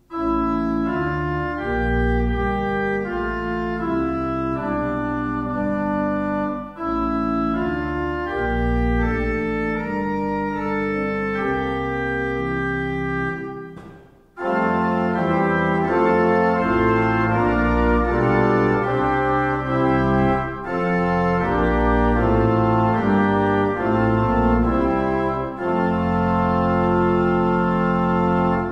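Pipe organ playing a registration demonstration. A solo line on the first manual uses Viola da Gamba 8', Flöte 8', Octave 4' and a mixture built as a cornet with quint and third. Beneath it, the second manual plays softly on Lieblich Gedeckt 8', Salicional 8' and Traversflöte 4', with Subbass 16' in the pedal. The playing breaks off briefly about fourteen seconds in, then resumes a little louder.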